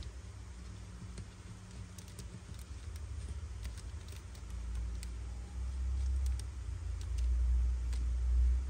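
A low rumble that builds louder over the second half, with scattered faint light clicks.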